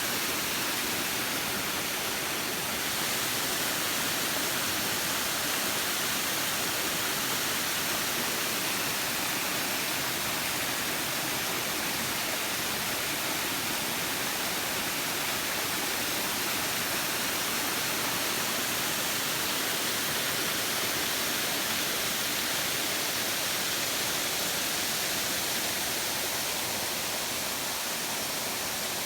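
Steady, even rushing hiss of falling water from a waterfall, unchanging and without breaks.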